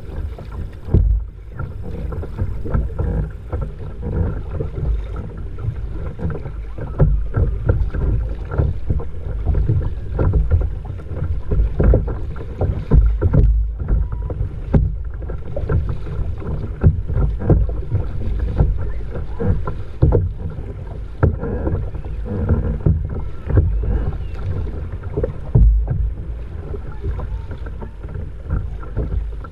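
Double-bladed kayak paddle dipping and splashing stroke after stroke, with water rushing along a sit-on-top kayak's hull. Wind buffets the microphone throughout, adding a low rumble under the splashes.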